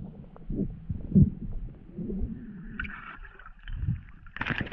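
Muffled underwater sound picked up through a camera's waterproof housing: low rumbling and soft knocking of water moving around a diver. A brief hissing gurgle comes about three seconds in, and a short louder rush of water near the end.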